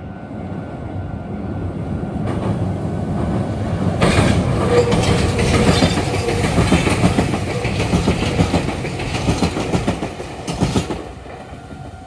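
Meitetsu electric train passing close by, its wheels clattering over the rail joints and points. It grows louder over the first few seconds, then fades near the end.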